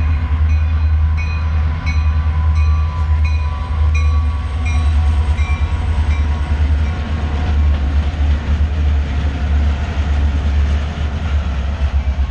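Canadian Pacific freight train passing close by: diesel locomotives and hopper cars making a loud, steady low rumble. For the first five seconds or so there is a quick, regular clickety-clack of the wheels over the rail joints.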